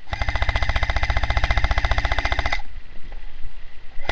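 Airsoft M4A1 rifle firing a long full-automatic burst, a rapid even clatter of shots lasting about two and a half seconds before it stops.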